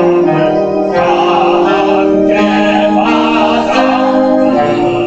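Choir singing a slow hymn in sustained chords that move to new notes every second or so.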